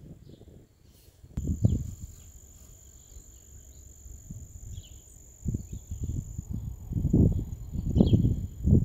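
Wind buffeting the microphone in irregular gusts, growing stronger about halfway through, over a faint steady high-pitched whine and a few faint short chirps.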